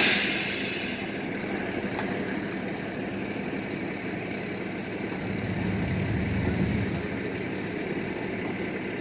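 A sudden loud hiss that fades over about a second, then steady street traffic and engine noise with a faint high tone, and a deeper engine rumble that swells and fades about six seconds in.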